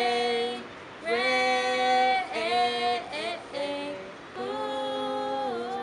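Female voices singing a cappella: long held notes without clear words, each about a second long, stepping from note to note.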